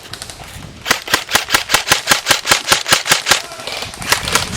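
Airsoft electric rifle firing on full auto, a rapid, even rattle of about eight shots a second. It runs in a long burst starting about a second in, pauses briefly, then fires again near the end.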